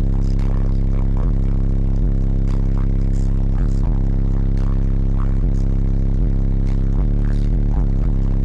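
Three Crossfire 18-inch subwoofers on an American Bass 12K amplifier playing a deep, sustained bass note, heard from inside the truck cab. It is loud and steady, distorted, with scattered rattles and clatter through it.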